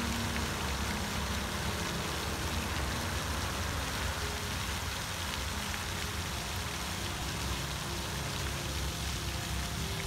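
Floating pond fountain spraying, its water falling back onto the pond surface in a steady, even hiss, with a low rumble beneath.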